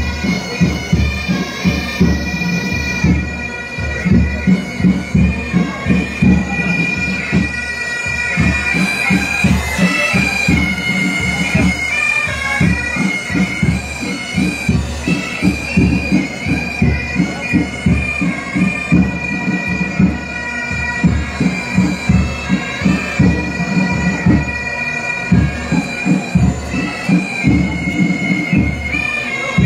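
Pipe band playing: bagpipes carry a melody over a steady drumbeat.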